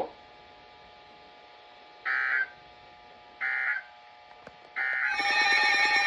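Three short bursts of warbling data tones from a weather radio, about a second and a half apart: the SAME digital header that opens a National Weather Service warning broadcast. About five seconds in, a louder, steady electronic alert alarm from the weather radio receivers sets off.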